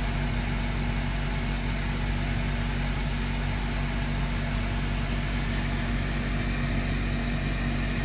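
Steady low mechanical hum with a constant even hiss, unchanging throughout.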